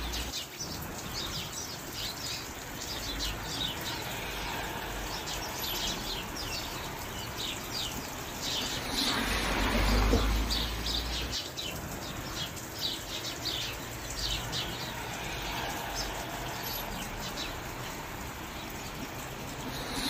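A chorus of small birds chirping with many quick, falling calls over a steady hiss of rain, with a low rumble swelling briefly near the middle.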